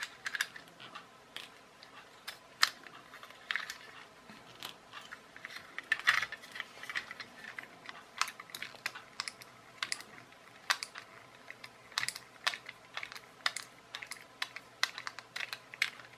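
Irregular clicks and taps of hard plastic parts and a small screwdriver as a toy RC car transmitter is taken apart by hand, with a louder knock about 2.5 s in and a cluster of clicks about 6 s in.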